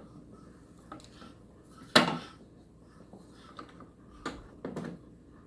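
A few scattered clicks and knocks of parts being handled on a Ryobi 40-volt cordless snow blower as its chute rotation lever and handles are worked. One sharp knock about two seconds in is the loudest.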